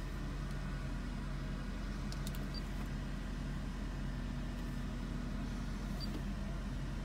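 Mercedes SL 500's V8 engine idling steadily, heard as a low hum from inside the cabin. A few faint clicks come about two seconds in, and two tiny high beeps come at about two and a half and six seconds.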